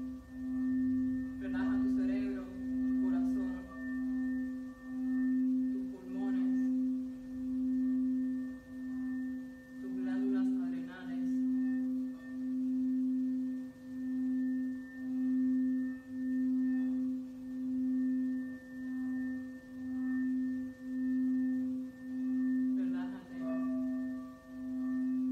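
Crystal singing bowl sung by circling a wand around its rim: one steady, low, sustained note with fainter overtones above it, swelling and fading in a regular wobble about once a second.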